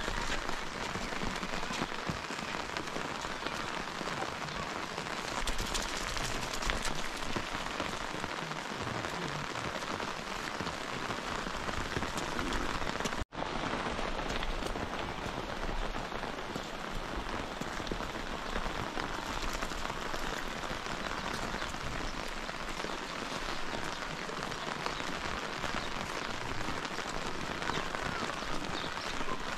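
Heavy rain falling steadily, a dense even hiss of drops; the sound cuts out for an instant about thirteen seconds in.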